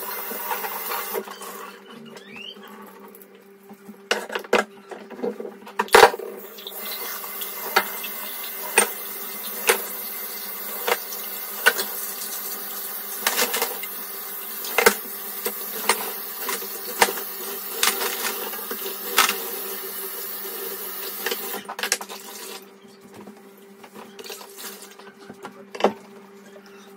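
Tap water running into a stainless steel sink while dishes are washed by hand, with repeated clinks of crockery and glasses. The water comes on about six seconds in and stops a few seconds before the end, leaving only scattered clinks.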